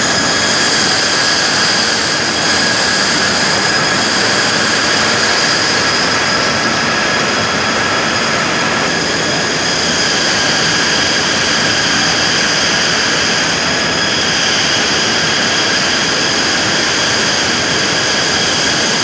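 Blower fans and machinery of a crumb-rubber processing line running steadily: a loud rush of air with several steady high whines over it.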